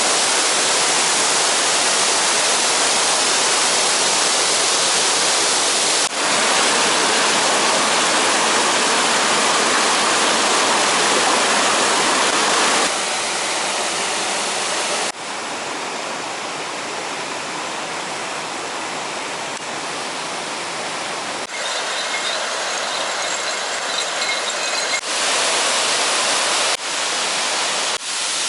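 Waterfall: a steady rush of falling water. Its level and tone change abruptly several times, getting quieter and thinner about halfway through.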